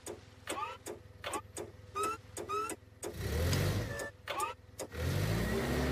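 Cartoon forklift engine revving up twice, rising in pitch, among a run of short rising squeaks and sharp clicks.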